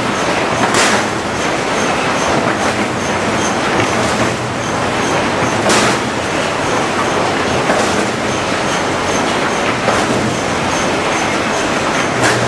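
HewSaw R200 chipper-canter sawmill line running: a loud, steady mechanical noise with a few sharp knocks and a faint regular ticking.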